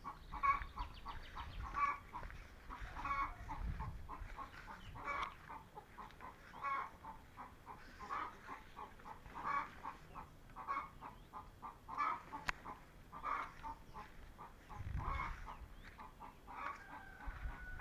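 Chickens clucking: short calls repeating about once a second, with a low rumble twice in the background.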